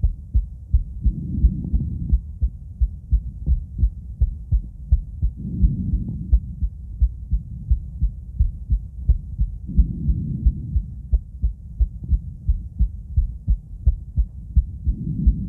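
Human heartbeat heard through a stethoscope held to the chest: a steady run of low lub-dub thumps. A soft whooshing swell, plausibly breathing through the chest wall, rises and fades about every four seconds.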